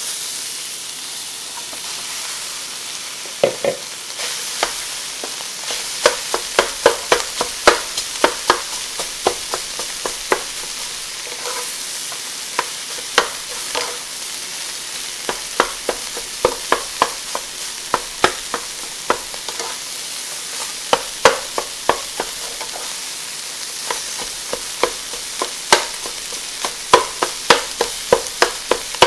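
Rice sizzling in a wok as it is stir-fried, with a steady hiss throughout. From about three seconds in, a spatula knocks and scrapes against the pan in quick, irregular runs of sharp clacks.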